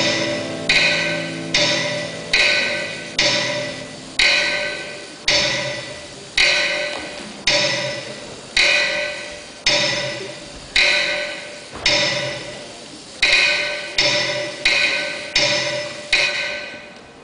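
Struck percussion beating slow single strokes, each ringing and fading before the next, about one a second, closer together near the end, then stopping.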